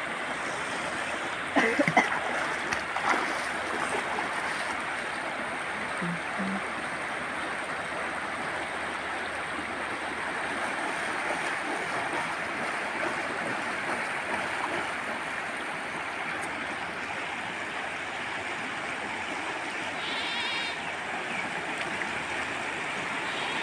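Fast-flowing floodwater rushing steadily, with a few brief louder splashes about two seconds in.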